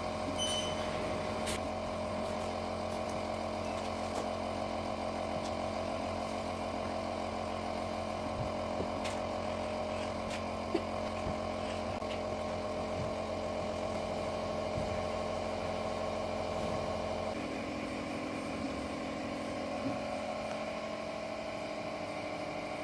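Steady mechanical hum of room tone with a few faint clicks. The hum shifts to a different pitch mix about 17 seconds in.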